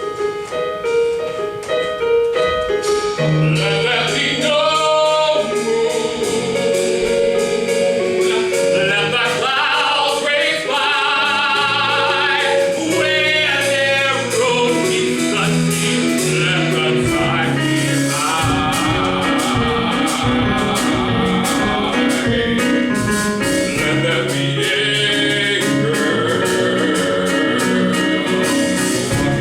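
A song from a stage musical: singers holding long notes with vibrato over instrumental accompaniment that keeps long low notes going.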